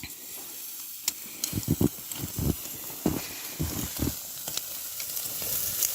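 Meat sizzling on a hot grill, a steady hiss that grows louder toward the end, with a few short dull knocks in the middle.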